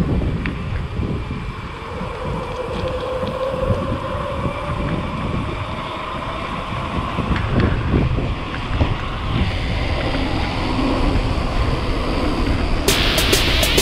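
Wind buffeting the microphone of a camera riding on a bicycle speeding downhill: a steady low rumbling rush, with faint whining tones in the background. About a second before the end, a sudden bright hissing sound cuts in.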